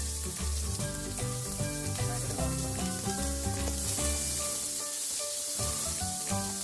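Chopped onions sizzling in hot oil as they are stirred with a wooden spatula, under background music with a bass line.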